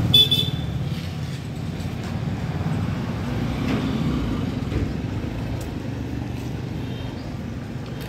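A motor vehicle's engine running close by, its low rumble slowly fading away. A brief high-pitched sound at the very start.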